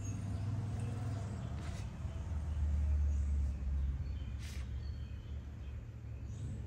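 Makruk pieces set down on the board with faint clicks, about two seconds in and again about four and a half seconds in, over a steady low rumble that swells in the middle.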